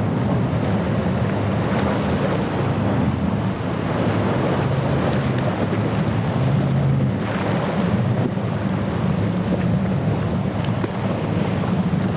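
Doral cabin cruiser running at speed, a steady low engine drone under the hiss of its bow wave and spray, with wind on the microphone.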